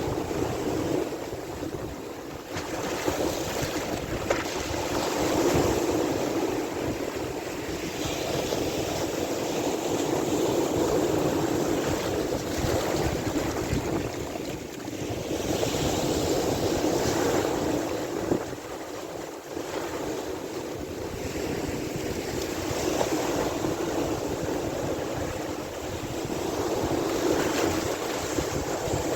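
Sea waves washing in and drawing back: a steady rush that swells and fades every five or six seconds.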